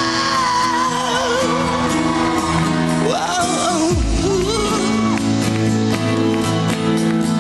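Pop-rock band music with a voice singing long, wavering notes over sustained chords, and heavy bass hits about four seconds in.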